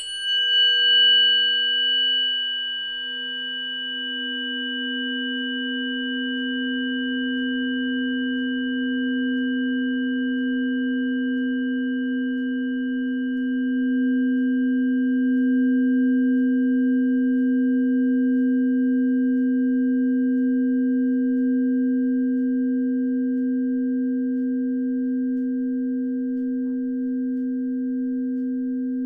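Singing bowl ringing on after a strike, its low hum swelling gradually and then holding steady, with a brighter high overtone that fades out over the first few seconds.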